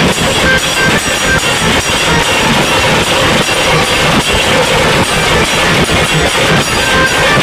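Qawwali music in an instrumental stretch between sung lines, mixed with a loud, steady rattling rumble.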